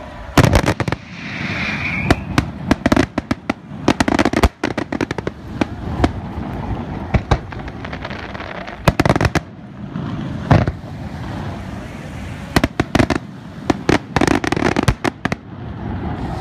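Professional fireworks display: a rapid, irregular string of sharp bangs from bursting shells and firing fountains, coming in clusters with short gaps between them.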